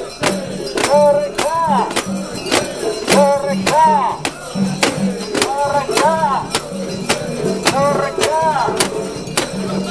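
Mikoshi being carried and shaken: sharp metallic clanks from the fittings on the shrine and its carrying poles, about twice a second in time with the bearers' steps, under the bearers' rhythmic chanting.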